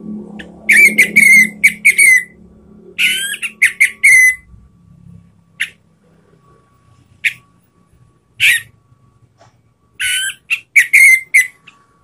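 Orange-headed thrush singing loud, clear whistled phrases in full open song. A quick run of notes comes about a second in and another around three seconds, then single notes spaced apart, then a fast run near the end.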